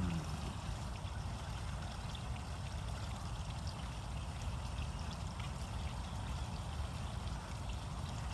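Wind rumbling on the microphone: a steady, low, fluctuating rush.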